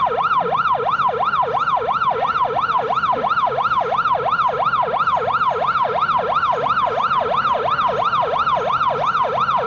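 Police siren on fast yelp, rising and falling about three times a second, with a steady high tone alongside it.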